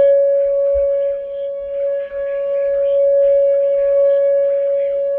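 Whelen electronic outdoor warning siren sounding a steady, single-pitch alert tone for a tornado warning, swelling and fading slightly in loudness.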